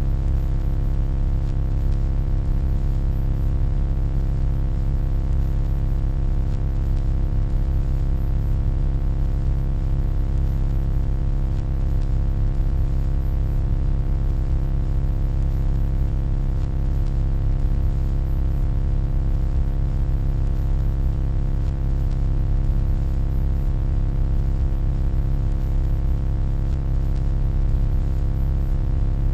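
Steady electronic hum: a deep, even drone with many faint steady overtones and a light hiss above, unchanging throughout.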